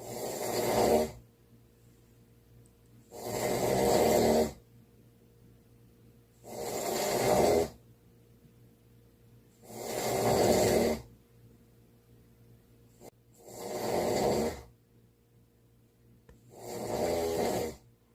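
Loud snoring, six snores in a slow, regular rhythm about every three and a half seconds. Each lasts a little over a second with quiet breaths between.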